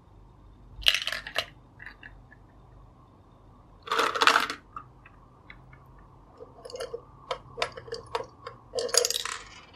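Hello Kitty, Bonbonribbon and Minion plastic toy gumball dispensers cranked one after another, each knob clicking as it turns and a candy ball rattling down into its plastic tray. The sound comes in three bursts: a short clatter about a second in, another at about four seconds, and a longer run of quick clicks near the end.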